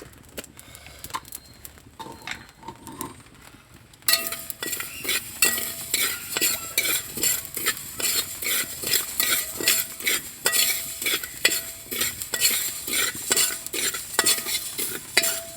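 A spoon stirring and scraping rice and whole spices dry-roasting in an uruli. Light clicks at first, then about four seconds in it turns loud: quick, regular scraping strokes, with the vessel ringing briefly on some of them.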